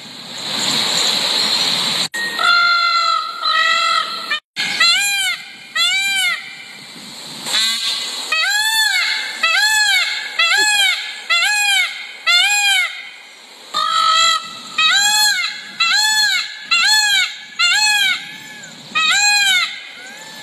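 Peacock calls: a few short flat honks, then a long run of loud wailing calls that rise and fall in pitch, a little more than one a second with a couple of brief pauses.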